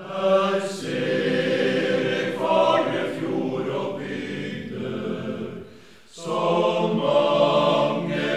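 Men's choir singing in several voices, in two phrases with a short break about six seconds in.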